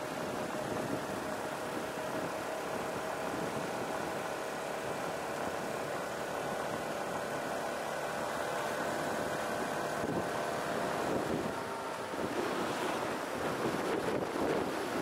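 Yamaha Serow 250's air-cooled single-cylinder engine running steadily while riding, with wind rushing over the helmet-mounted camera's microphone. About twelve seconds in, the engine tone fades and the wind noise grows and buffets.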